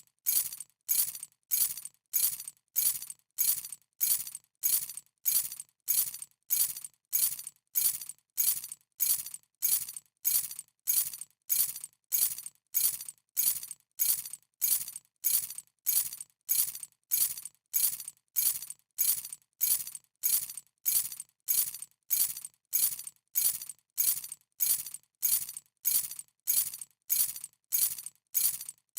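A bunch of metal keys dropped onto a hard surface, landing with a short bright jingle. The drop repeats over and over at an even pace, somewhat more than once a second.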